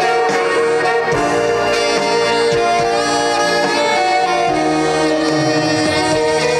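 Instrumental interlude of a trot song with no singing: a melody of long held notes over the backing accompaniment.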